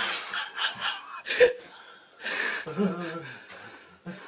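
People's nervous vocal sounds: a sharp gasp, breathy whimpers and a little laughter, in short bursts with quiet gaps between.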